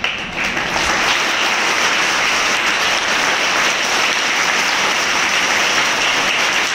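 An audience of schoolchildren applauding, many hands clapping together; it starts suddenly and holds steady.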